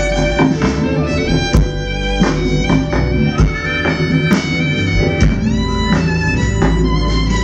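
Violin playing a sustained melody over a live band, with drum hits and a steady bass line underneath.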